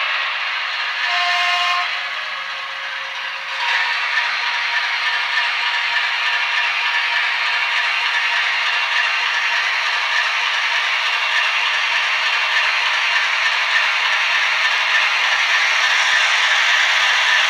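TT-scale model diesel locomotive running on its layout with its sound decoder playing through a small speaker. A brief two-tone horn sounds about a second in, then a steady running sound sets in from about four seconds in and holds.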